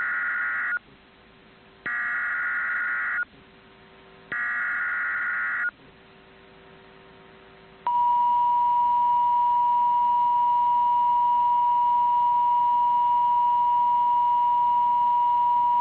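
NOAA Weather Radio emergency alert signal. Three raspy digital SAME header squawks a second apart (the first already sounding at the start) announce a new tornado warning. About eight seconds in, the steady single-pitch 1050 Hz warning alarm tone starts and holds.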